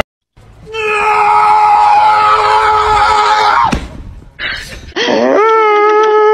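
A long, steady scream held for about three seconds that cuts off suddenly. About a second later a husky starts a drawn-out howling whine, rising at first and then holding steady.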